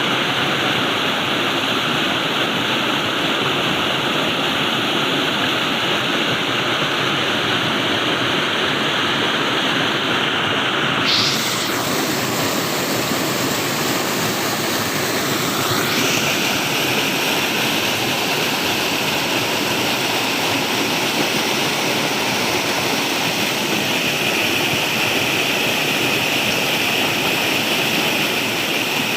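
Steady rushing of flowing water. Its tone changes slightly about 11 seconds in, brighter in the highs, and holds from there.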